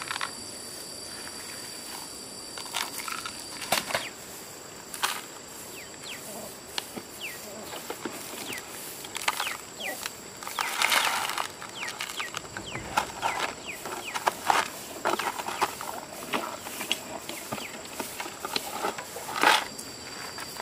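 Steady high-pitched insect calling, with scattered knocks and clatters throughout and a denser run of them about halfway through.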